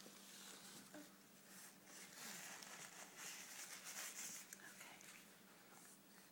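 Near silence: faint rustling about two to four and a half seconds in, over a faint steady hum.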